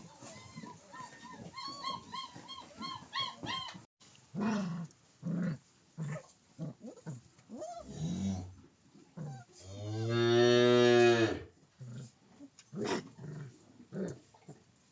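A cow mooing: one long, low call about ten seconds in, the loudest sound here. Before it, a quick run of short, high, whining calls and some scattered short grunts.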